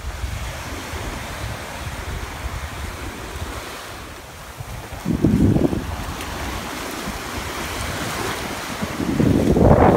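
Small surf washing up onto a sandy beach, with wind buffeting the microphone as a steady low rumble. The sound swells louder about five seconds in and again near the end.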